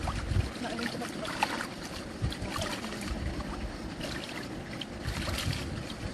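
Wind rumbling unevenly on the microphone beside water, with scattered light ticks and splashes.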